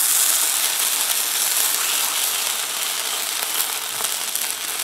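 Cornmeal johnnycake batter sizzling in hot oil as it is ladled onto a cast iron griddle: the sizzle is loudest as the batter first hits, then eases to a steady fry. The griddle is running a little too hot.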